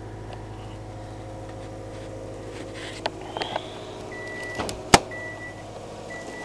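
2008 Subaru Forester's flat-four boxer engine at a steady fast idle right after a cold start, near 2,000 rpm with the engine still cold. About four seconds in the car's warning chime starts beeping about once a second, and a moment later the driver's door latch clacks loudly as the door is opened.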